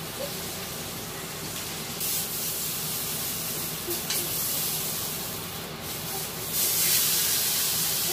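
Bone-in ribeye steak sizzling in a hot cast iron pan, held on its fatty edge with tongs so the fat renders. The sizzle is steady and grows louder about two-thirds of the way through.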